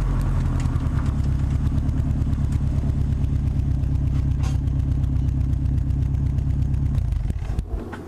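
Subaru WRX turbocharged flat-four engine idling with a rapid, even exhaust pulse, then stopping about seven and a half seconds in.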